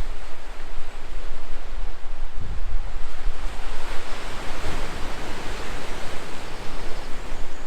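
Coastal wind buffeting the microphone over the rush of sea surf, a steady loud noise that swells briefly near the middle.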